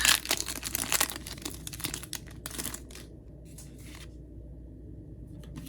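Foil wrapper of a Pokémon trading-card booster pack being torn open and crinkled, densest in the first second, then thinning to a few scattered rustles by about four seconds in.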